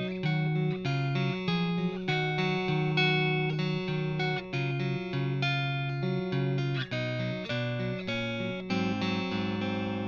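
2016 Gibson Les Paul on its neck P-90 pickup, played through a 1991 Marshall JCM900 4500 head and an Orange 2x12 cabinet with Celestion G12H speakers, picked up by a Warm Audio WA-47jr microphone in cardioid pattern. Picked notes and broken chords ring into one another, with a lower, fuller chord near the end.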